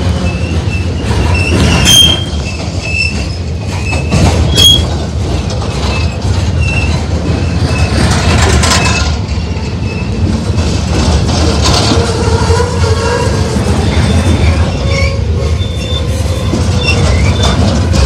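Coal hopper cars of a freight train rolling past close by: a steady low rumble of steel wheels on rail, with broken high-pitched wheel squeal and two sharp clanks, about two seconds in and again a couple of seconds later.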